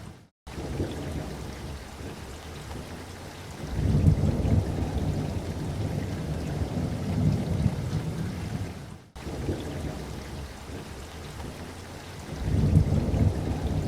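Looped thunderstorm recording: a steady rain hiss under deep rolling thunder rumbles that swell twice. The sound drops out for a split second near the start and again about two-thirds in, where the loop restarts.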